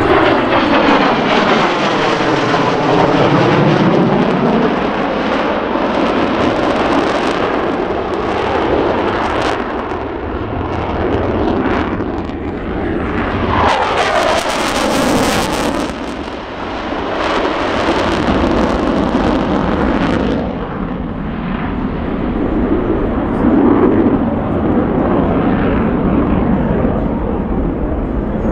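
Jet noise from an F/A-18 fighter's twin engines during low display passes. In the first few seconds the sound sweeps through a phasing pitch as the jet goes by, and a harsh, hissing surge comes about halfway through.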